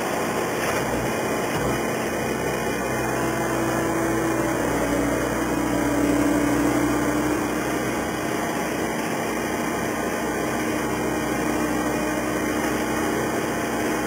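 Engine of working machinery running steadily at a constant level, with a steady low tone that dips slightly in pitch about five seconds in.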